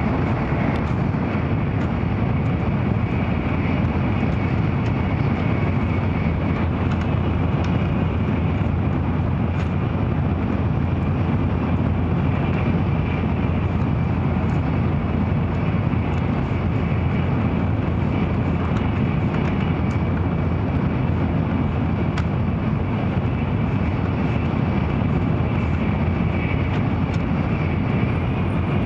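Inside the passenger car of an N700-series Shinkansen running at speed: a steady rumble of running and air noise, with a few faint light ticks here and there.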